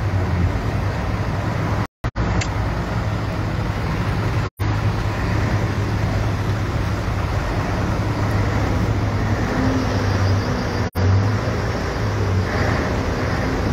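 Road traffic noise on a wet road: a low engine rumble under a steady hiss. The sound cuts out briefly three times.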